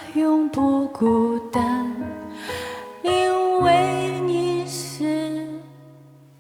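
A woman singing a pop ballad with band accompaniment. A few short sung phrases give way about three seconds in to one long held final note over a steady bass chord, which fades away at the end of the song.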